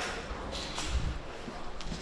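Footsteps and rustling of a player moving on foot, with a few soft, irregular knocks.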